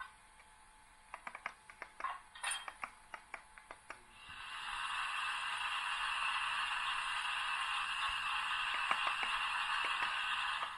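Sound-decoder steam effects from a model BR 44 steam locomotive standing still, played through the ESU LokSound 5 micro decoder's small speaker: a few scattered clicks, then about four seconds in a steady hiss of steam with a tone in it that holds for about six seconds and cuts off suddenly near the end.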